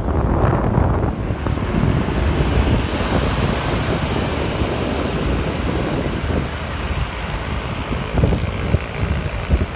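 Road traffic rumbling past at the roadside, with wind buffeting the microphone; no horn is sounded.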